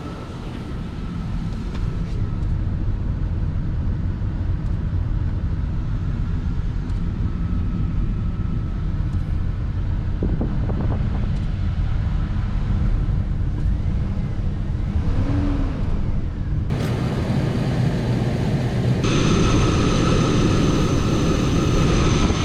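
2003 GMC Sierra's 4.8-litre V8 idling steadily while it warms up with the cooling system bleeding air after a water pump replacement. The sound turns brighter and a little louder about three-quarters of the way through.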